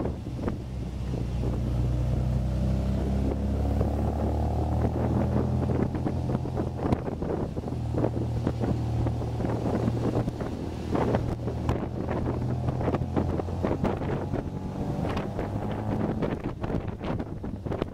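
MGA roadster's four-cylinder engine running under load, heard from inside the open car, its pitch rising as it accelerates a couple of seconds in and again near the end. Wind buffets the microphone throughout.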